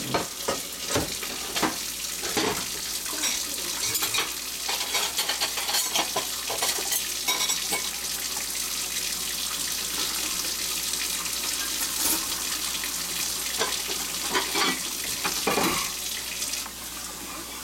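Dishes and cutlery clinking and knocking over a steady hiss of running water, the sounds of a kitchen sink and dishwasher being worked at.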